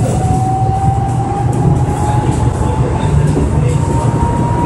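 Rubber-tyred Bombardier Innovia Monorail 300 train accelerating: a steady low rumble under a thin whine that rises slowly in pitch as the train gathers speed.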